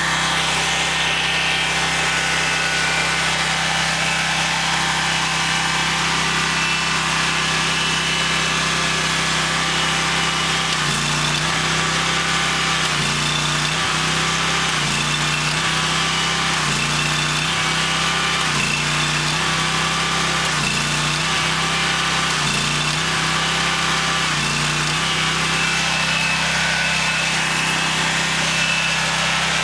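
Pressure washer engine and pump running steadily during a pressure test of a newly fitted PA 80/280 unloader with a blue spring. From about a third of the way in, the engine note dips and recovers about every two seconds, roughly eight times, then it settles back to a steady run.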